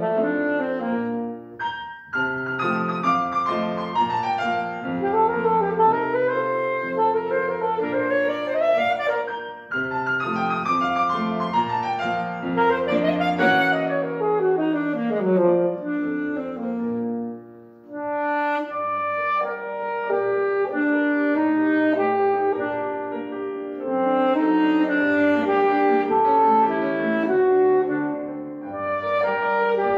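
Alto saxophone and grand piano playing together: quick runs sweeping up and down in the saxophone over the piano, a short break about eighteen seconds in, then longer held notes over piano chords.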